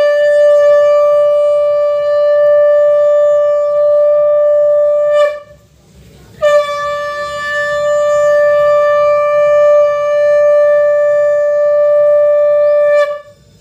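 Conch shell (shankha) blown in two long, loud blasts, each one steady held note. The first breaks off about five seconds in, the second starts about a second later and stops shortly before the end.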